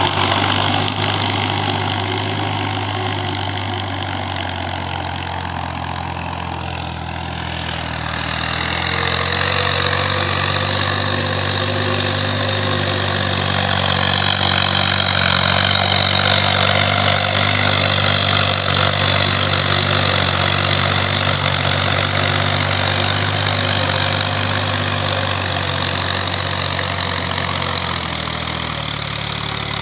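Farm tractor engine running steadily under load as it pulls a rotary tiller through a flooded, muddy paddy field. The engine gets a little louder about nine seconds in, and a wavering high whine rides above the engine note from then on.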